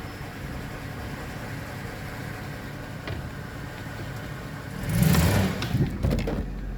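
A 2005 Chevrolet Silverado's drivetrain with the 4L60E automatic transmission running with the driveshafts out: a steady low running sound, then a brief louder surge about five seconds in. It is the weird noise that stays even with the driveshafts removed and the torque converter replaced, so it does not come from the driveshafts or the suspension.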